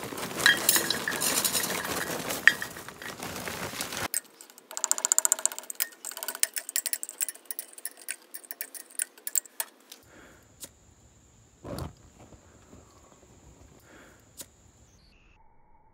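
Charcoal briquettes poured from a bag into a cast-iron 1959 Ford brake drum, a dense rattle for about four seconds, followed by scattered clinks and knocks as the briquettes are shifted around by hand in the drum.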